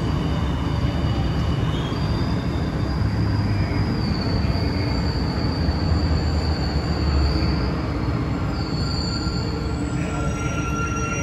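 Cabin noise inside an Alstom NS-16 rubber-tyred metro train slowing into a station: a steady rumble of the running gear, with a thin high squeal held for several seconds in the middle.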